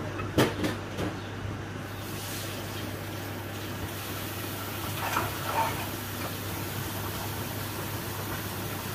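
Light clinks of kitchen dishes and utensils, three quick ones about half a second in and a short clatter about five seconds in, over a steady low hum.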